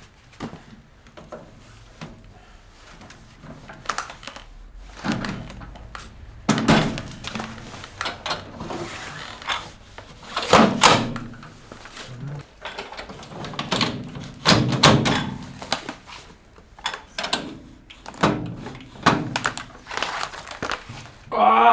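Irregular knocks and thunks from objects being handled and set down, with a few heavier thuds along the way.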